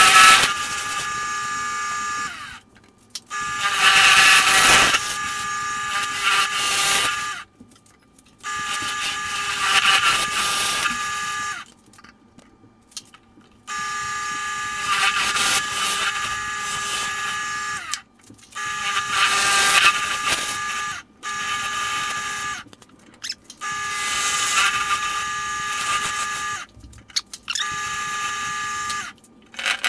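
Wood lathe running with a steady, many-toned motor whine while a turning tool cuts a spinning bloodwood lid. The cutting noise swells and fades every few seconds. The whole sound breaks off abruptly several times.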